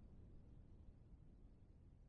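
Near silence: faint low room rumble and hiss.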